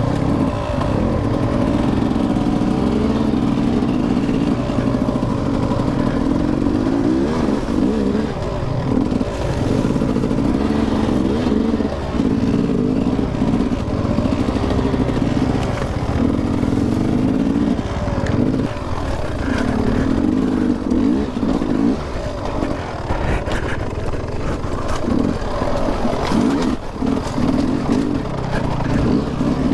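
Dirt bike engine revving up and down over and over, the throttle opened in short bursts and shut off again, as the bike picks its way at low speed up a rocky riverbed trail.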